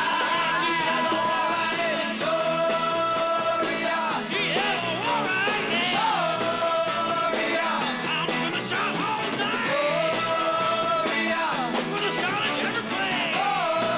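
Live rock band playing a rock and roll number, with long held lead notes that waver and swoop up into each phrase over steady backing.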